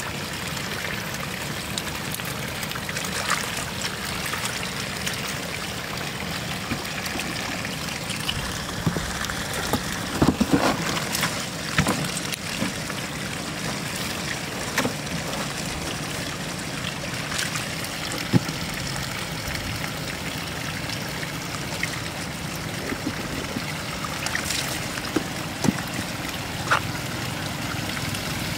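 Floodwater running steadily, a trickling, streaming wash. A few brief sharp sounds come through it, most of them about ten to twelve seconds in.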